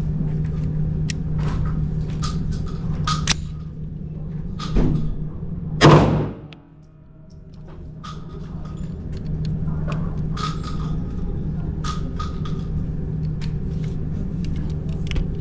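A single 9mm gunshot about six seconds in, a sharp loud crack with a short echo, from a home-built 9mm being test-fired. Lighter metallic clicks and knocks come before and after it, over a steady low hum.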